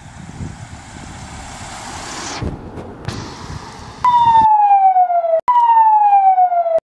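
Rushing noise of an approaching ambulance swells over the first two seconds or so and cuts off. About four seconds in, a loud ambulance siren starts, sweeping down in pitch twice, each sweep lasting about a second and a half.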